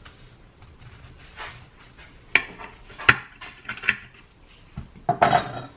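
Kitchen knife cutting through a crisp-edged, cheese-topped roasted stuffed pepper, the blade knocking sharply on the slate board three times about a second apart from about two seconds in, with a louder clatter near the end.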